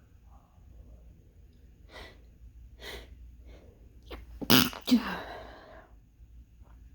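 A person's sneeze from a congested nose: a few short, sharp in-breaths about two and three seconds in build up to one loud two-part sneeze about four and a half seconds in, trailing off over the next second. The congestion is from allergies or a cold, and the sneezer is not sure which.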